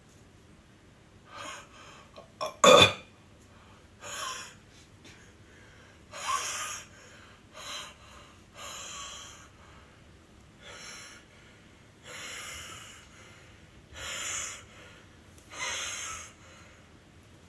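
A person's sharp, breathy inhales and sniffs, coming every second or two, while trying to force a sneeze. One loud, abrupt burst about three seconds in is the loudest sound.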